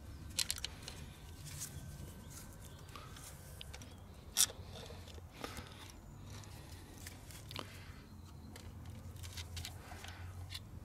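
Faint scattered metal clicks and scrapes of a thin screwdriver prying a copper injector washer out of a diesel injector well, with one sharper click about four seconds in.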